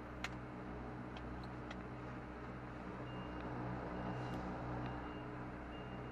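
Lorry's diesel engine running steadily at low revs, heard from inside the cab, with one sharp click just after the start. From about halfway, the reversing alarm beeps about once a second as the lorry backs up.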